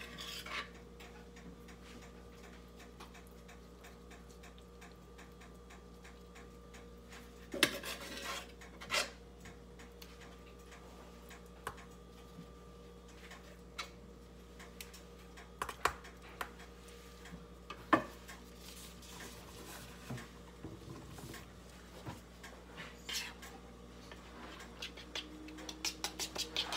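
A metal spoon scraping and clinking against a disposable aluminium foil pan as shredded chicken is spread over a lasagna layer, in scattered separate strokes, with a faint steady hum underneath. Near the end a quick run of taps as sauce is spooned out of a bowl onto the pan.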